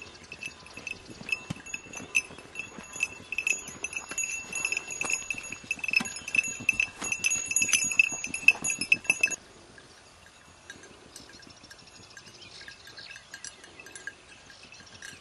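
A small bell on a hunting hound's collar, ringing and jingling continuously as the dog moves and sniffs through the grass, loudest as it passes close by about eight seconds in. The ringing cuts off abruptly about nine seconds in, leaving only faint rustling and ticking.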